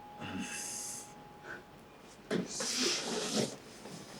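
A person's heavy breathing: two breathy exhales, the second louder and longer with a slight voiced sigh in it.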